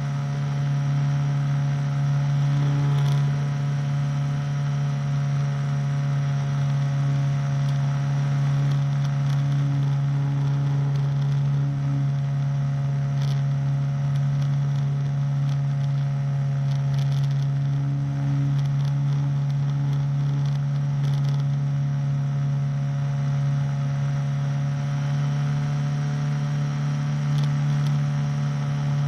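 Engine and propeller of a powered hang glider running at a steady throttle, a constant unchanging drone in flight.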